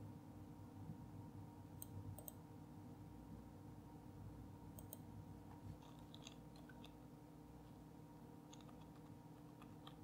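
Near silence: faint room hum with a few scattered faint computer mouse clicks.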